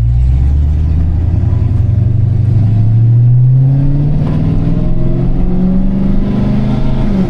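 Supercharged Hellcat V8 under acceleration, its engine note climbing steadily in pitch for several seconds and dropping back near the end.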